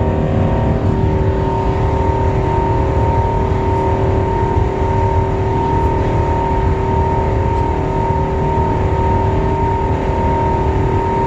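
Airbus A380 turbofan engines running steadily at high thrust during the takeoff climb: a deep, constant rumble with steady whining tones over it.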